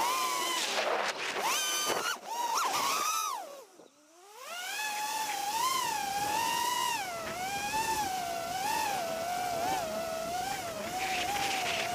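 6S FPV quadcopter's brushless motors whining, the pitch rising and falling with the throttle. About four seconds in the throttle is chopped: the whine drops low and nearly fades out, then spools back up.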